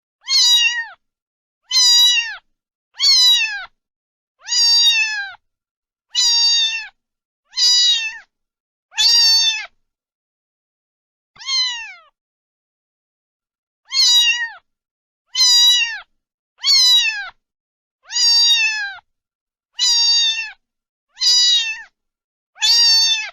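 A domestic cat meowing over and over, about fifteen high meows that each fall in pitch, roughly one every second and a half. There is a longer pause in the middle with one softer meow.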